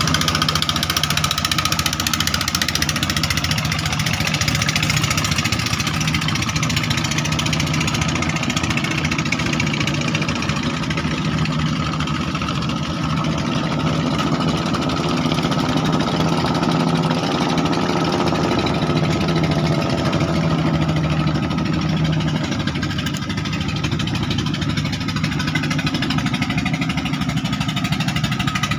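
Klotok river-boat engine running steadily, with a second engine note swelling and fading in the middle.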